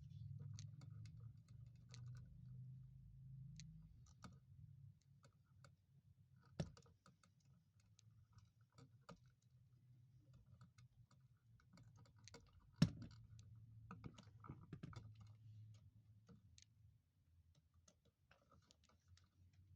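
Faint, scattered small clicks and taps, with two sharper clicks about a third and two-thirds of the way through, over a faint low hum.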